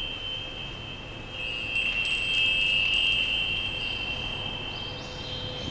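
Small hanging metal bells and chimes ringing with a high, steady ring. About two seconds in they are struck again and the ringing swells, with a brief jingle, then slowly fades.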